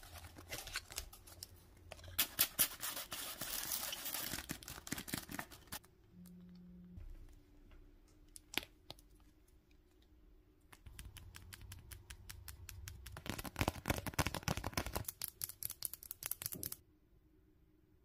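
Close-up handling noise: crackly rustling and scratching of a mesh zip pencil pouch, its card tag and a fluffy pom-pom pen being handled, in two stretches of several seconds with a quieter pause and a single click between them.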